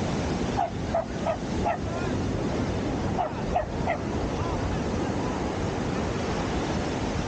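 A small dog barking in two short runs, four barks and then three a couple of seconds later, over the steady wash of breaking surf.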